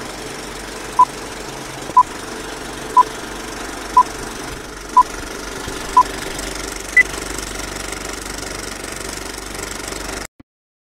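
Film-leader countdown: a short beep once a second, six times, then a single higher-pitched beep, over the steady rattle and hiss of a running film projector. The sound cuts off abruptly near the end.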